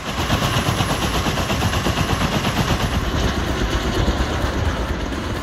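Kaman K-MAX helicopter with two intermeshing rotors, giving a fast, steady, chopping beat of the blades over the rushing noise of the running helicopter.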